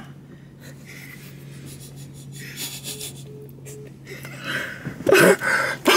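Young men stifling laughter, breaking into loud laughing about five seconds in, over a low steady hum; three faint short beeps come midway.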